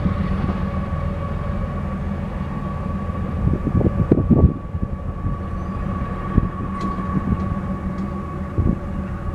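Loaded grain freight train rumbling steadily as it moves away, with a thin steady high tone throughout. There is a brief rougher, louder patch about four seconds in.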